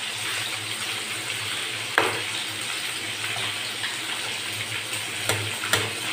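Kangkong (water spinach) being stirred with a metal spoon in a small steel pan of sardines cooking in a little water, a steady hiss from the pan. The spoon clinks sharply against the pan three times: loudest about two seconds in, twice more near the end.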